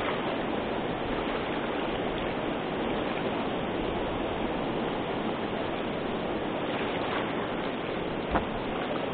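Water pouring over a low dam ledge and churning below it: a steady, even rush. A single light knock sounds near the end.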